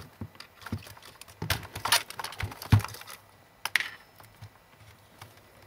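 Handling noise of a plug and cables at a plastic power strip: scattered clicks, knocks and rattles as a plug is fumbled into a socket that doesn't make good contact, the loudest knocks about two to three seconds in.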